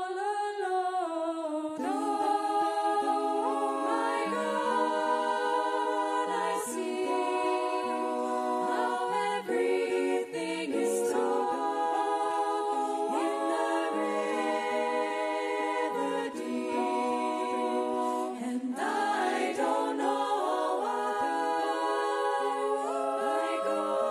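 Women's a cappella choir singing, several voices holding chords in harmony that shift every second or two.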